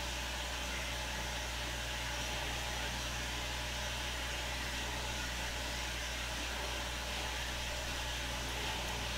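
Steady hiss over a low hum, with no distinct events: background noise of the room and recording.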